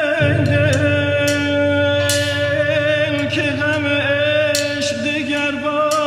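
Music: a male voice singing long, wavering held notes over a low, steady instrumental accompaniment that comes in just after the start.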